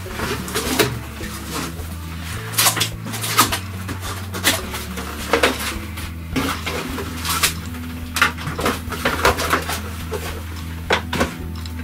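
Irregular clattering and knocking of objects being moved and set down while someone rummages for a magnifier in the workshop, over low steady background tones.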